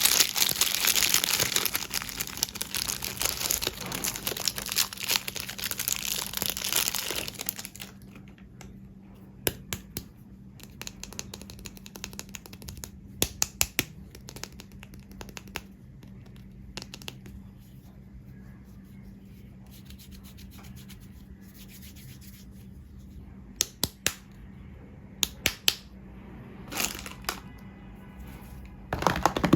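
Soap packaging being unwrapped and handled: dense wrapper crinkling and tearing for about the first eight seconds, then quieter stretches with scattered light taps and clicks, a few louder ones near the end.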